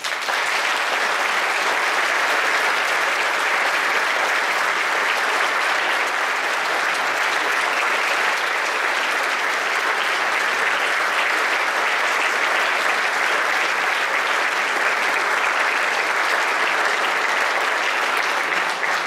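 Concert audience applauding: dense clapping that starts abruptly and holds steady.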